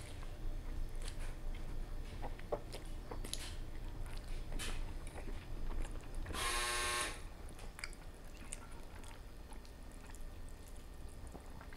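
A person chewing a mouthful of creamy pasta, with small wet mouth clicks. About six seconds in, a metal fork scrapes briefly against a ceramic plate while twirling noodles, the loudest sound.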